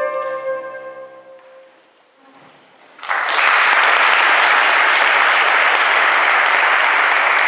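The last flute and piano chord dies away over about a second and a half, then after a brief hush an audience breaks into steady applause about three seconds in.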